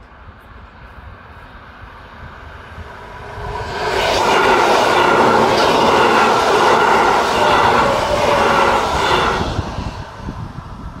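Passenger train passing close by at speed. The sound swells about three and a half seconds in, holds as a loud, steady rush of wheels on rails for about six seconds, then fades away near the end.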